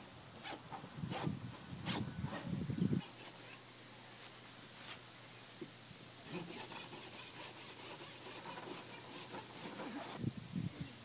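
A large knife sawing through a pumpkin's thick rind, cutting around the top: rough rasping strokes, heaviest in the first few seconds, then lighter scraping cuts. A steady high tone runs behind it.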